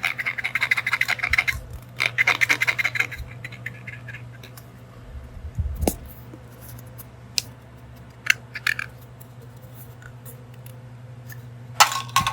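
Plastic toy food pieces being handled and rummaged through. There are two spells of rapid scratching and rustling in the first three seconds, then scattered light clicks and taps as pieces knock together.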